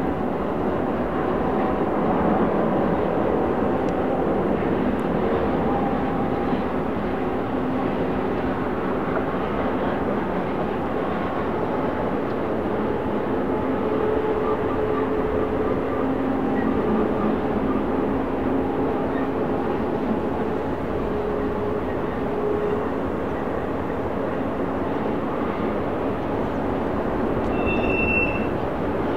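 BNSF intermodal freight train rolling past, a steady rumble of wheels on rail with faint tones drifting in and out.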